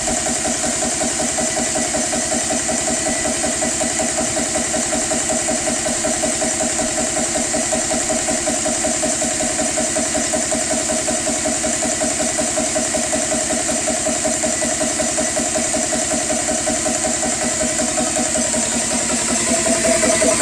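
GX CS3 4500 psi PCP air compressor running steadily with a fast, even pulse from its piston, pumping up an air rifle's air reservoir. It gets a little louder near the end.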